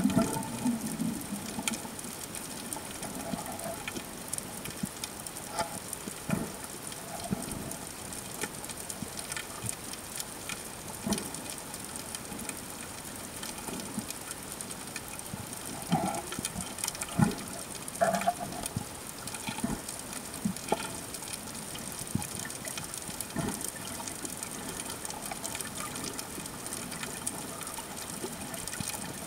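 Underwater ambience: a steady hiss of water with irregular short clicks and knocks throughout, the sharpest one about two-thirds of the way in.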